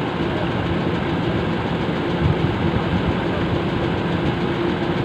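Fishing boat's engine running steadily, a constant low hum, with one short knock about two seconds in.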